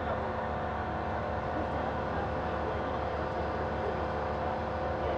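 A steady mechanical hum, like an engine running, with no change in level.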